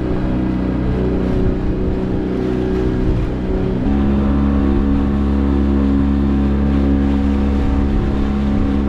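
Small fishing boat's engine running under way, with water rushing and spraying along the hull. About four seconds in the engine note steps up a little and holds steady as it speeds up.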